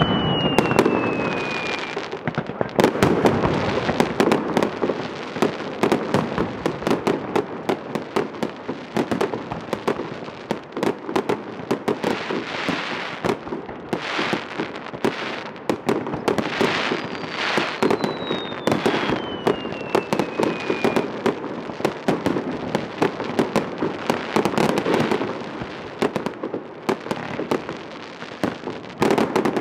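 Fireworks display: aerial shells going off in a dense run of sharp bangs and crackles, several a second. A thin whistle falling in pitch sounds at the start and again just past halfway.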